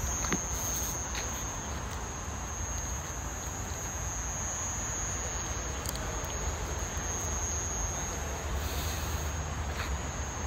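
Steady high-pitched insect chorus, crickets trilling without a break, over a low outdoor rumble.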